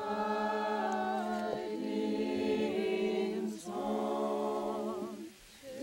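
A cappella choir singing slow, sustained chords in close harmony: one long held phrase, a brief breath about three and a half seconds in, then a second held phrase that drops away near the end.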